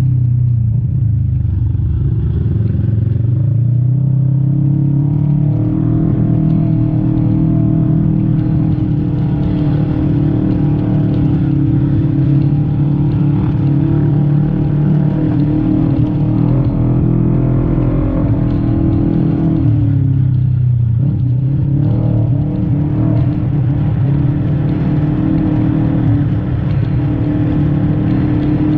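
Segway Villain side-by-side UTV engine running hard under throttle. Its pitch dips briefly near the start and again about two-thirds of the way through, then climbs back as the throttle comes on again.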